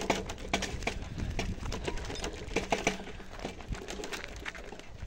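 Irregular knocks and rattles, several a second, of a vehicle rolling over a rough gravel dirt road.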